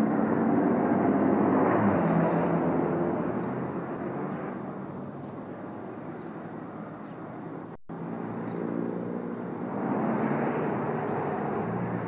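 Motor vehicles passing in traffic: one passes and fades away over several seconds, and a second swells up about ten seconds in. There is a brief dropout near eight seconds.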